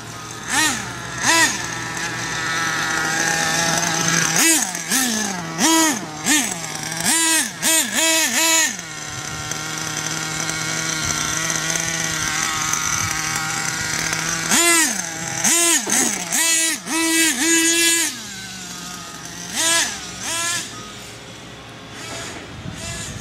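Small RC car engine idling with a steady buzz and revving in quick, repeated throttle blips, each a sharp rise and fall in pitch. The blips come in bunches about five seconds in and again about fifteen seconds in.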